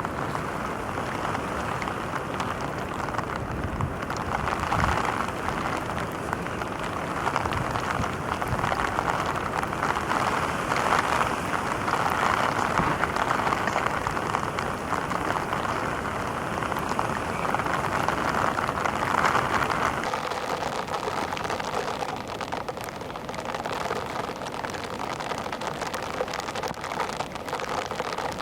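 Heavy rain falling steadily, a dense, even patter. It thins a little about twenty seconds in.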